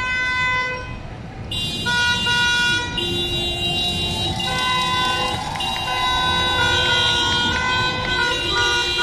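Many horns honking at once: held notes of several different pitches overlapping, each starting and stopping every second or so, over a steady street rumble.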